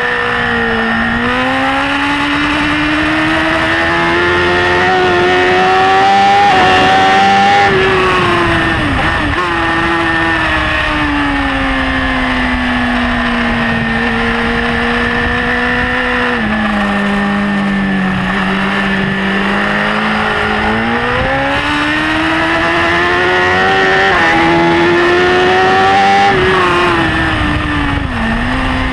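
BMW S1000RR's inline-four engine heard from on board at racing speed, over wind rush. The engine note climbs for several seconds, drops away about a quarter of the way in, holds lower and steadier through the middle, then climbs again in the last third with a quick dip near the end.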